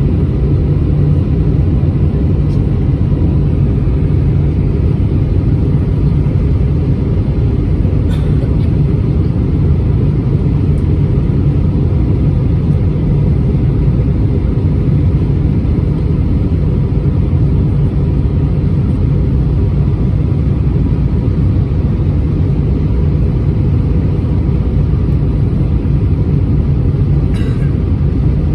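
Steady low rumble of an Airbus A320-231's cabin in flight: engine and airflow noise, unchanging throughout.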